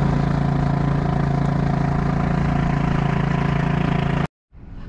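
A small boat motor running steadily at constant speed, an even low hum that cuts off suddenly near the end.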